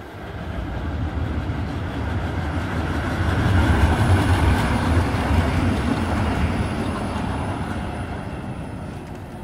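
Škoda 15T articulated low-floor tram passing on street rails. Its rumble grows as it approaches, is loudest about four seconds in as it goes by, and fades as it moves away.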